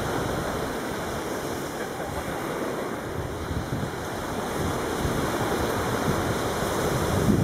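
Steady rush of small waves and sea wind, with wind rumbling on the microphone.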